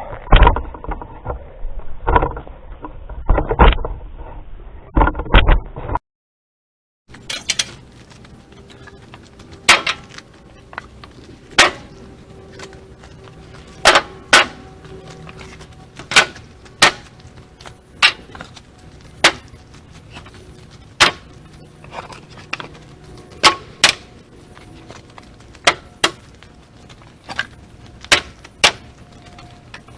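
Split firewood being tossed piece by piece onto a load: sharp wooden knocks every second or two, broken by a short silent gap about six seconds in.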